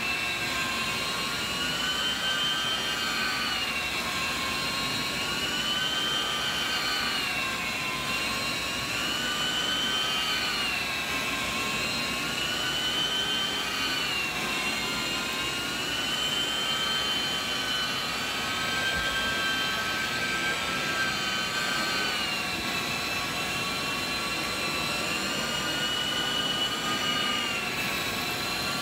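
Truck-mounted hot water extraction machine's vacuum pulling through a Rotovac rotary extraction tool on carpet: a steady high-pitched whine over a rushing hiss, wavering up and down in pitch every few seconds.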